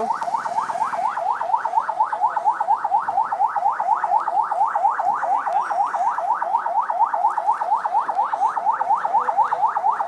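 Police vehicle's electronic siren on a fast yelp, a rising sweep repeating about four or five times a second without a break.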